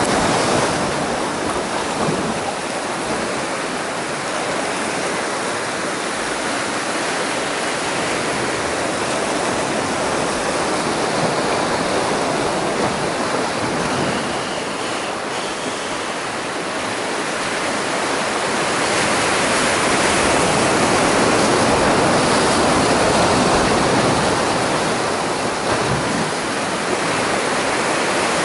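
Sea surf washing and breaking over shoreline rocks: a continuous rushing of water that swells a little louder past the middle.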